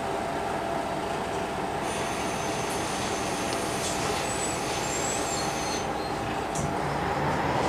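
City bus heard from inside: its engine running with road and body noise, and thin high squeaks between about two and six seconds in. The rumble grows louder near the end.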